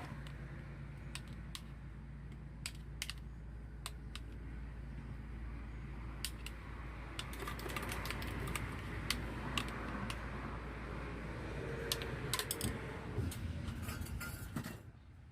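Scattered light clicks and clinks of utensils and containers being handled, over a steady low hum; it all drops away suddenly near the end.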